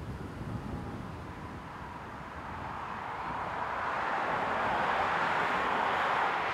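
A car driving past on a road: tyre noise builds over a few seconds and stays loud near the end as the car passes close by.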